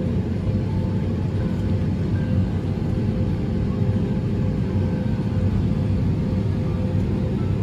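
Cabin noise of an Airbus A320 taxiing: a steady low rumble from its wing-mounted turbofan engines at taxi power, with a steady hum.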